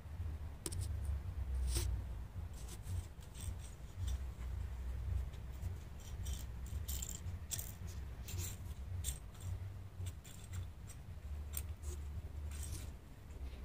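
Scattered light clicks and scrapes of a wooden popsicle stick being pawed and nosed by a cat on hard patio tiles, over a steady low rumble.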